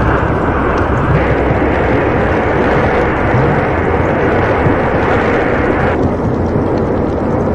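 Loud, steady rumbling roar with no distinct events. Its upper range changes abruptly about a second in and again about six seconds in, as at edits between recordings.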